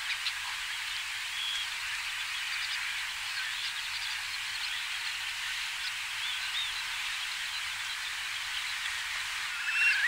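Far Eastern curlews calling: scattered short whistled notes over a steady hiss, with a louder call near the end.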